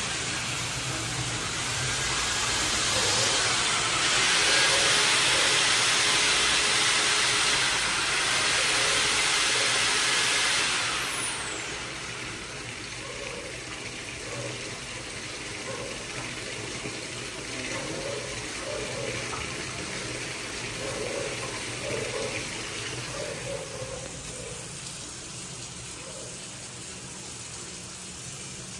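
Water gushing into a plastic bucket, cutting off about eleven seconds in. After that, a quieter stream of tap water runs into a kitchen sink whose drain, partly cleared of a clog, is still draining slowly.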